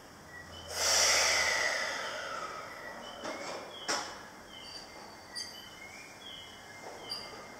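JR East E751 series electric train at the platform as it starts to move off. About a second in there is a hiss of air that fades over about two seconds. After that comes a low hush with faint short high tones and a few light clicks.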